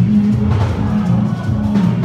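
Loud gospel band music with a prominent, shifting bass line.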